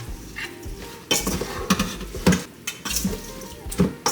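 A spoon stirring and turning raw, seasoned oxtail pieces in a bowl, with irregular scrapes and clinks against the bowl and wet squelching of the meat.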